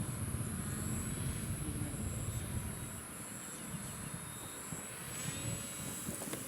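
Volantex Ranger 757-4 electric RC airplane flying, its 2212 brushless outrunner motor and 8040 propeller giving a high whine, with a short gliding change in pitch about five seconds in. Wind rumbles on the microphone, easing after about three seconds.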